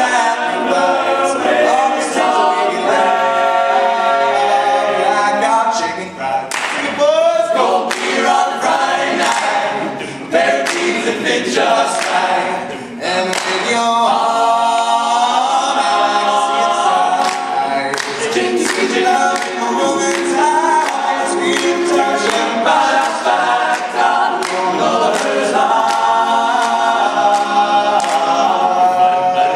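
Male a cappella group singing: a male solo voice leads over close-harmony backing vocals from the group, with no instruments.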